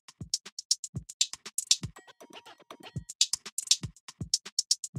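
Background music with an electronic drum-machine beat: low kick-drum thumps under rapid, crisp hi-hat ticks.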